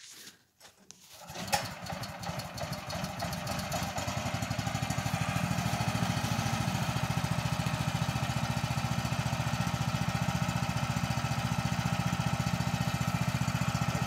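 The engine of a TMG portable band sawmill starting about a second and a half in, picking up over the next couple of seconds, then running steadily.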